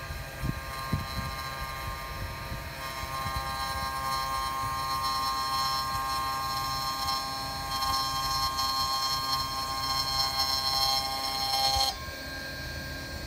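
S-300-E double-side cashmere splitting machine running as double-faced cashmere cloth is fed through its blade to be split into two layers: a steady mechanical whine of several held tones. It grows louder a few seconds in and drops off abruptly near the end, with a few soft knocks about a second in.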